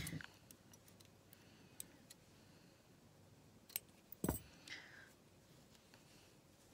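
Quiet handling noise from hands working a small crocheted piece: a few faint clicks and one sharper knock a little past four seconds in.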